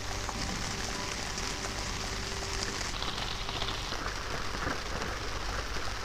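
Steady rain falling on wet ground and puddles, an even patter of drops splashing into standing water.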